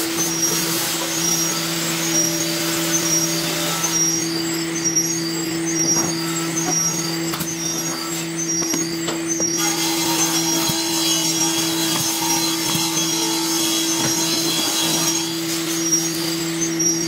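A workshop power tool's electric motor running steadily with a constant low hum. About ten seconds in a second, higher whine joins for several seconds, and a few faint knocks sound over it.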